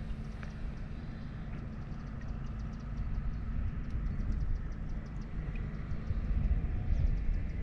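Wind rumbling on the microphone, with a steady low buffeting and faint rapid ticking over it.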